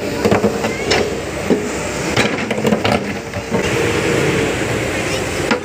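Excavator working, its machinery running steadily under a run of irregular sharp knocks and clanks that die away about three and a half seconds in.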